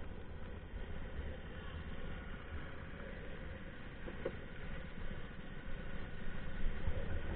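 Go-kart engine idling steadily, a low rumble with a hiss over it.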